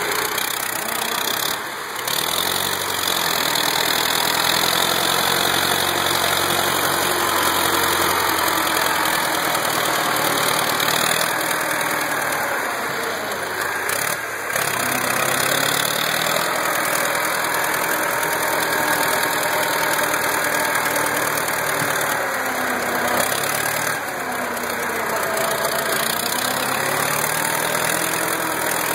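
YuMZ-6 tractor's four-cylinder D-65 diesel engine running under load as the four-wheel-drive tractor climbs a muddy slope, its engine speed rising and dipping a few times.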